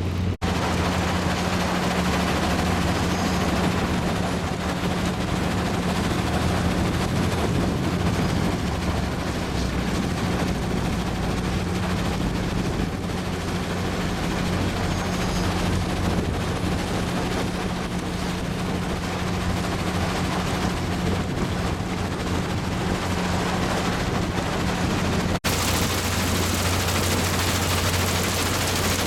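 Stacking conveyor equipment running: a steady low machine hum under a dense, crackly rattling noise. About 25 seconds in the sound changes abruptly, turning brighter and hissier.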